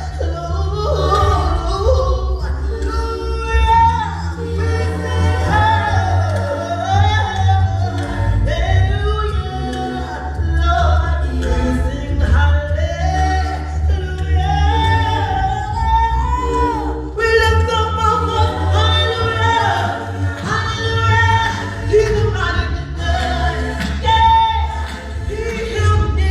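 Gospel praise music: a lead singer and choir voices singing over instrumental backing with a continuous deep bass.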